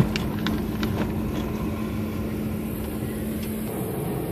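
Car driving on a gravel road, heard from inside the cabin: a steady engine and road drone with a few sharp ticks in the first second. Near the end the drone shifts higher.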